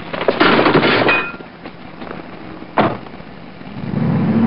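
Rustling and knocking as someone climbs into a car, then a car door slams shut about three seconds in. Near the end the sedan's engine comes up to a steady low hum as the car moves off.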